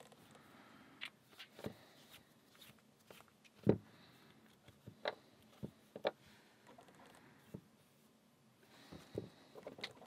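Scattered light clicks and taps from handling the dismantled padlock's steel housing and brass parts while its heavy screws are taken out, with the loudest tap a little over a third of the way in.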